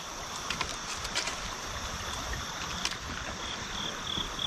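Steady rush of creek water around a wader, with a few faint clicks. From about three and a half seconds in, an insect starts chirping in an even, high-pitched pulse, about three chirps a second.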